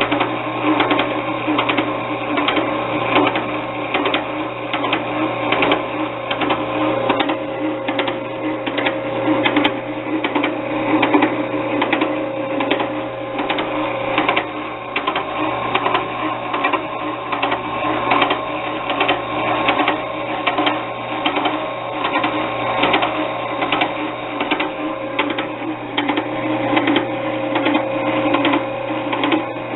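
Harbor Freight 9x20 bench lathe running with its reverse tumbler disengaged: a steady hum with a fast, even mechanical rattle over it, while noise in the gear train is being tracked down.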